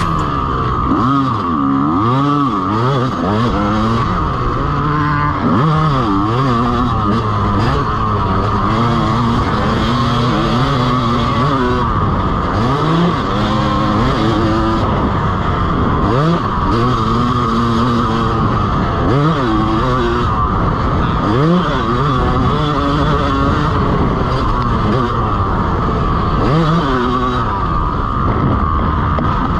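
Dirt bike engine heard from on the bike, revving up and down over and over as the throttle is opened and closed through the track's corners and jumps.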